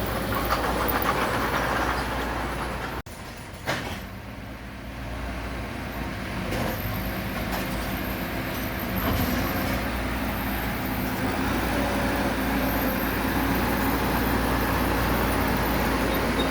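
Diesel engine of heavy earthmoving machinery running steadily, with a rumbling low end. The sound cuts out abruptly about three seconds in, then comes back quieter and builds up again to a steady run.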